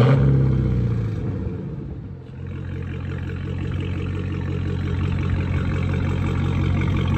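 Dodge Challenger Hellcat's 6.2-litre supercharged V8 through a near-straight-through exhaust (high-flow cats, mid mufflers, rear mufflers and resonators deleted). It starts with a short rev that falls back down, then settles into a steady idle.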